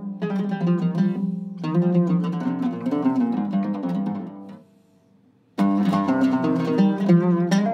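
Cedar-topped Turkish oud with Aquila strings played solo with a plectrum: a run of plucked melodic notes over low ringing strings. The playing breaks off for about a second past the middle, then starts again abruptly.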